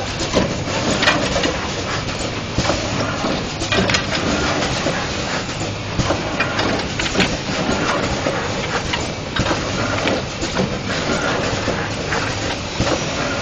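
Square-bottle screen printing machine running: a steady mechanical noise with irregular clicks and knocks.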